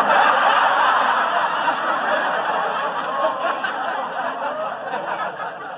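Studio audience laughing after a joke, loud at first and slowly dying away.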